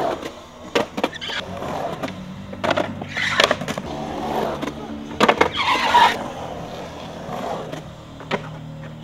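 Skateboard riding in a concrete bowl: wheels rolling on concrete, with repeated sharp clacks of the board and trucks striking the coping and landing. Two longer, louder scrapes come about three seconds and five and a half seconds in.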